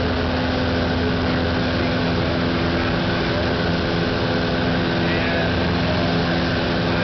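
Piper Tri-Pacer's piston engine and propeller running steadily in flight, a constant drone heard from inside the cabin.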